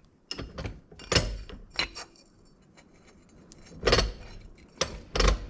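Sharp metallic clinks and knocks as a brake master cylinder is handled in a bench vise, about seven in all, the loudest around four seconds in and just before the end.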